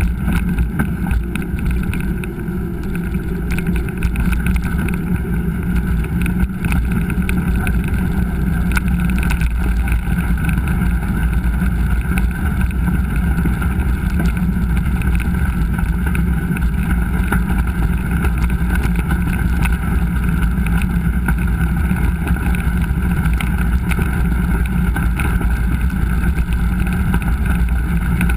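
Mountain bike ridden on a dirt trail, recorded by a GoPro: a steady rumble and wind rush over the microphone, with scattered knocks from the trail.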